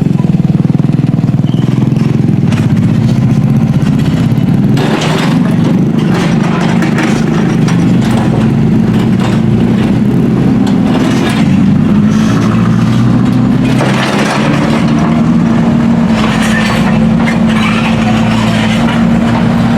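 An engine running steadily, with irregular bursts of rougher noise over it.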